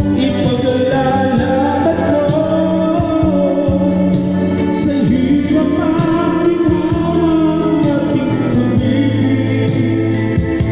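A man singing a slow melody into a handheld microphone over a karaoke backing track.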